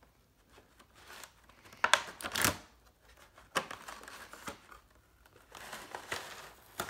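Thin clear plastic packaging crinkling and rustling in irregular bursts as it is handled and pulled off a boxed trail camera. The loudest crackle comes about two seconds in, and there is a sharp click near the end.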